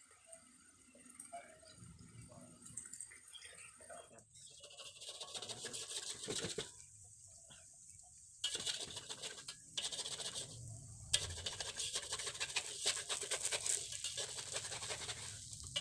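Noodle-and-egg patty frying in hot oil, sizzling and crackling. The sizzle comes up about four seconds in and runs on with two brief breaks.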